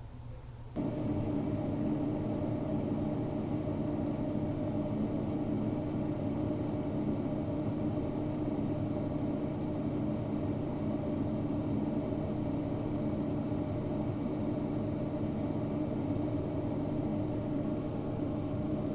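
A steady mechanical hum, like a small motor or fan running, that switches on abruptly about a second in and holds an even pitch.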